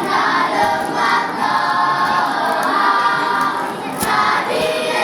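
Children's school choir singing together in several voices, with a short breath between phrases just before four seconds in.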